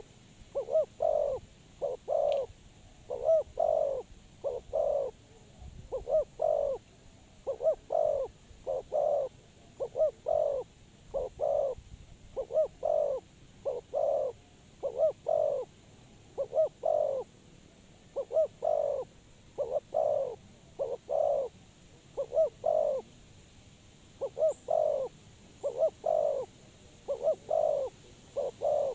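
Spotted dove cooing: short, low coos repeated over and over in short groups with brief pauses between them.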